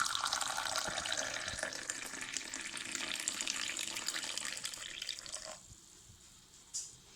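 Water running steadily into a vessel, stopping abruptly about five and a half seconds in. A brief faint tick follows near the end.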